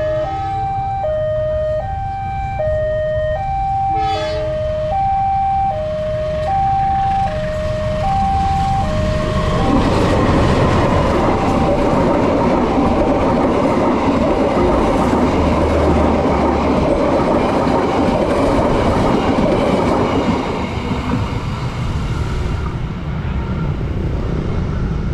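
Railway level-crossing warning siren alternating between two notes, E-flat and G, switching about every half second. About ten seconds in a train passes, its loud rushing noise drowning the siren for about ten seconds before dying down.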